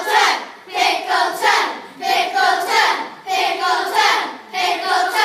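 A group of children singing together loudly in short repeated phrases, with brief gaps between them.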